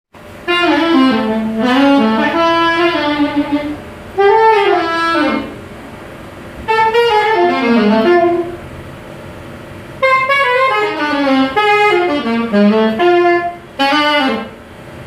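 Solo saxophone played softly as a sound check: short melodic phrases of one to three seconds, separated by brief pauses.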